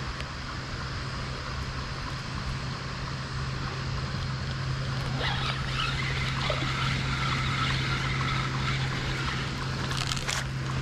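A spinning reel is cranked to bring in a hooked fish, with a faint whir through the middle, over a steady low rumble. A few short splashes and handling clicks come near the end.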